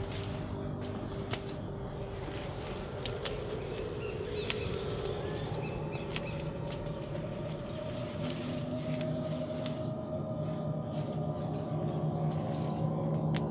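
Leaves rustling and footsteps crunching on dry cane stalks: scattered short crackles over a steady low drone that grows louder near the end.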